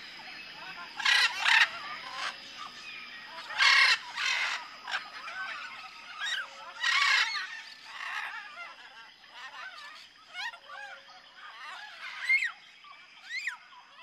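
Tropical forest ambience: many birds chirping and whistling, with several loud calls standing out, over a faint steady high-pitched tone.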